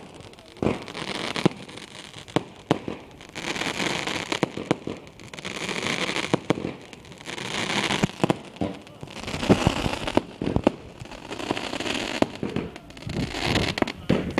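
Fireworks going off: many sharp bangs and crackles, scattered irregularly throughout.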